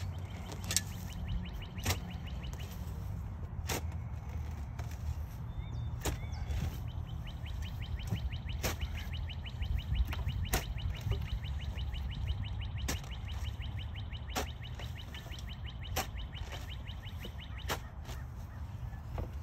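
Steel shovel blade chopping and scraping into soil and sod while digging out a garden bed, sharp strikes every couple of seconds. A rapid high trill, like a bird's, runs behind much of it over a steady low rumble.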